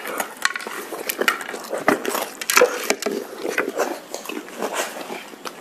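Children crunching and chewing crisp snacks, spicy Kurkure and potato chips, eaten straight off ceramic plates without hands: a quick, irregular run of crisp crunches and clicks.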